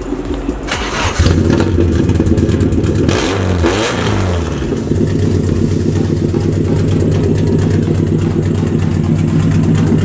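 Rally car's engine starting about a second in, revved up and back down once, then idling steadily.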